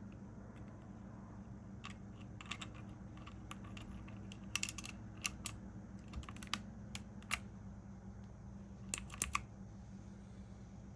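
Keys of a mechanical keyboard clicking as they are pressed down: scattered sharp clicks, uneven in spacing, with a quick run of three near the end. A low steady hum lies underneath.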